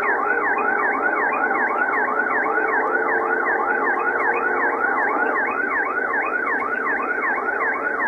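Police car siren sounding in a fast yelp, rising sweeps repeating about three to four times a second without a break, over steady road noise from the car at highway speed.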